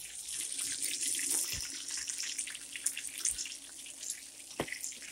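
Breaded chicken pieces sizzling and crackling in hot frying oil in a skillet. The sizzle is strongest in the first second or so, and a few brief knocks sound through it.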